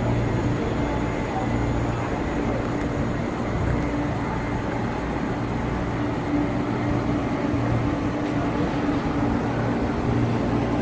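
MTR East Rail Line MLR electric train humming steadily, a constant low drone with a few steady tones and no wheel clicks or changes in pitch.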